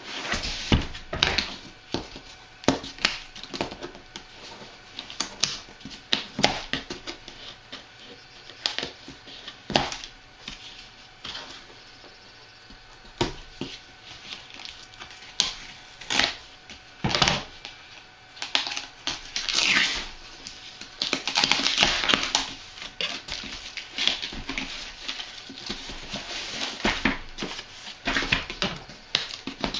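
A cardboard shipping box being handled while its plastic strapping is cut with scissors: a run of snips, knocks and taps, with stretches of cardboard scraping and rustling, the longest a little past the middle.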